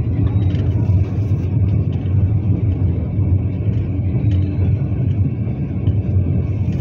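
Steady low rumble of a moving vehicle's engine and road noise, heard from inside the vehicle.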